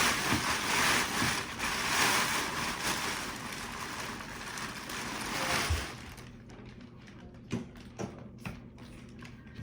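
Inflatable lawn decoration's blower fan running, with a steady rush of air. About six seconds in the rushing drops away, leaving a faint low hum and a few light knocks and fabric rustles.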